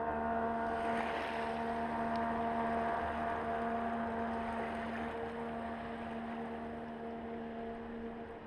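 Evinrude E-TEC 65 hp jet outboard running at speed, a steady engine drone with the rush of water thrown by the jet, growing slowly fainter as the boat moves away.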